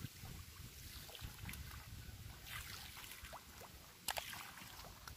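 Faint water sloshing and splashing as a person wades through a flooded rice paddy, scattering fertilizer by hand, with wind rumbling on the microphone. There is a short sharp click about four seconds in.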